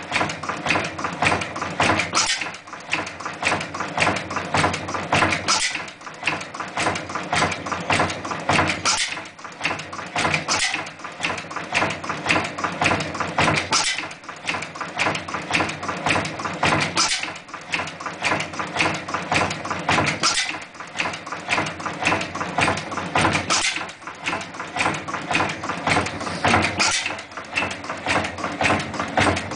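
Hot bulb stationary oil engine (Triumph/Invincible type) running: a steady, rapid mechanical clatter and knocking, with a louder beat recurring about every three seconds.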